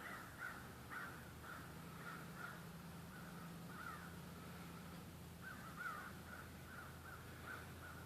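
Faint bird calls, a long run of short calls repeating every half second or so, over a steady low hum.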